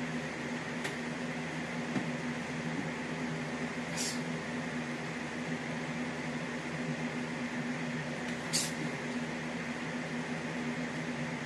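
Three short swishes of clothing as a man throws kicks in sweatpants: about a second in, at about four seconds and near the end. A steady low mechanical hum runs underneath.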